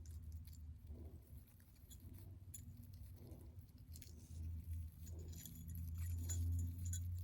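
Small jingle bells on a pipe-cleaner craft jingling faintly with a few light clicks as it is handled and tied, over a low steady hum.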